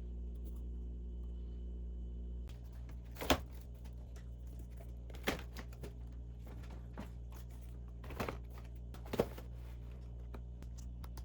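Household items being handled and set down, with small clicks and four sharper knocks over a steady low hum.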